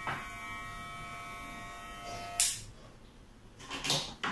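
Wahl Super Taper electromagnetic hair clipper running with a steady buzz, then switched off with a click about two seconds in. A few small handling knocks follow near the end.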